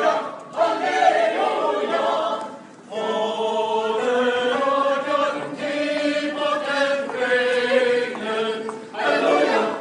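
A choir of many voices singing together, holding long notes, with a short break about three seconds in.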